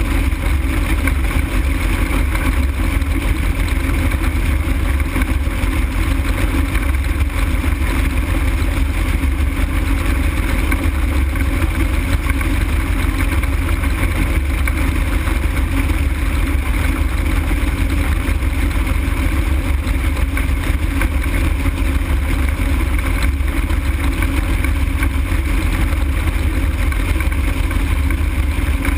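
Steady in-flight noise of an open-frame ultralight aircraft: a heavy low rush of wind over the open airframe and camera, with a faint steady drone, unchanging throughout.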